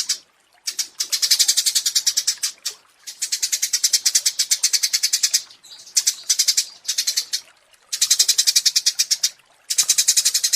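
A small songbird giving a rapid, high chattering trill of quickly repeated ticking notes, in bursts of one to two and a half seconds separated by short pauses, about five bursts in all.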